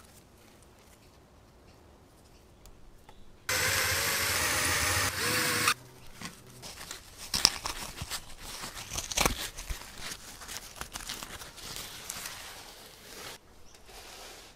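Layers of an old, brittle bicycle seat cover of fabric and leather being pulled apart by gloved hands, with irregular crackling, tearing and small sharp clicks. Before that, a loud steady noise of unclear source runs for about two seconds and cuts off abruptly.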